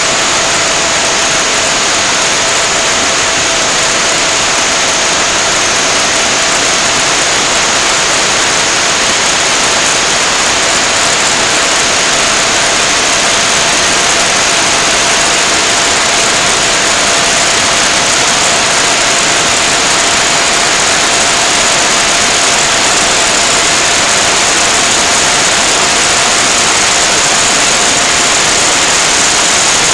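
Loud steady hiss with two faint steady whines in it, one high and one lower.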